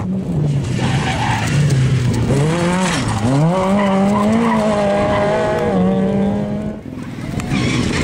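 Rally car engine revving hard as the car slides through a gravel corner and pulls away. The engine note dips and climbs again about three seconds in, holds high, then cuts off near the end, over the hiss of tyres on loose gravel.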